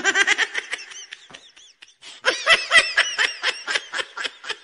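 A person laughing in quick, high-pitched giggling bursts, in two bouts with a brief pause about two seconds in.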